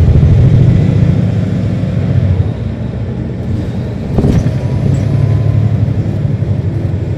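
Caterpillar C13 diesel engine of a NABI 40-ft transit bus heard from on board, running loud under power, then easing off about two and a half seconds in. A brief knock comes about four seconds in, and the engine runs on more quietly.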